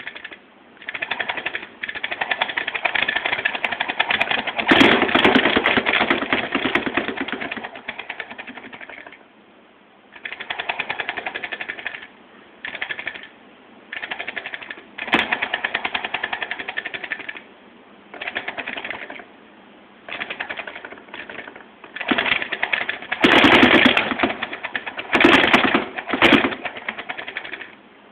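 Force-feedback joystick's motors and gears driving the stick in bursts, a fast mechanical rattling buzz that starts and stops every second or few. The strongest bursts come about five seconds in and again near the end.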